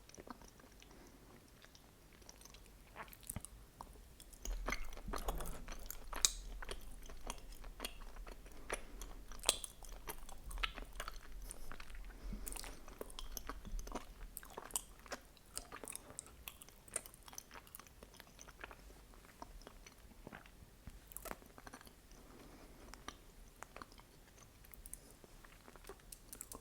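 Close-miked chewing of mochi filled with red bean paste: sticky, wet mouth sounds made of many small clicks and smacks. Louder and busier from about a few seconds in to the middle, then quieter toward the end.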